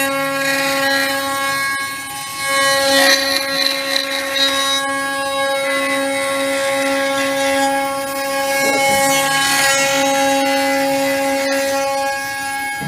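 CNC router spindle running with a steady whine while the bit cuts a decorative wooden finial. Louder bursts of cutting noise rise and fall as the bit bites into the wood, around three seconds in and again near the ninth second.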